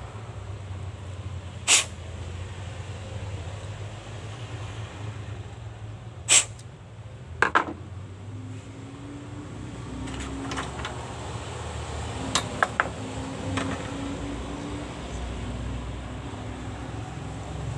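Sharp clicks and knocks of stove parts being handled, some in quick pairs, over a steady low hum.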